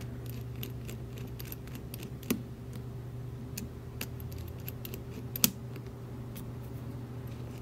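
Small metallic clicks and taps as a thin metal tool works at the brass core of a Schlage Kryptonite KS43 padlock, freeing its actuator and tailpiece, with two sharper clicks about two seconds in and about five and a half seconds in. A steady low hum runs underneath.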